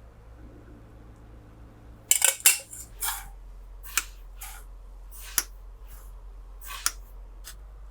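Kitchen utensils and dishware being handled: a short burst of clattering about two seconds in, then scattered light clicks and taps.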